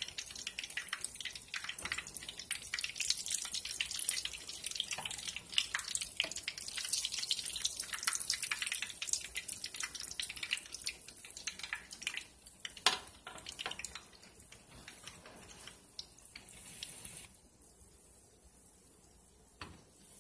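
Corn fritters frying in a pan of hot oil: the oil crackles and pops with a dense, irregular spatter, with a louder pop now and then. The crackle thins out and nearly stops about three seconds before the end.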